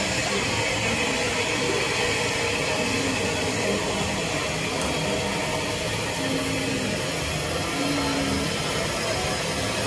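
Steady hiss of steam from West Country class steam locomotive 34092 City of Wells standing at the platform during coupling.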